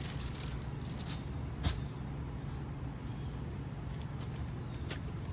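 Steady high-pitched chorus of insects, like crickets, trilling without a break over a low steady hum. A single sharp knock sounds about a second and a half in, with a fainter click near the end.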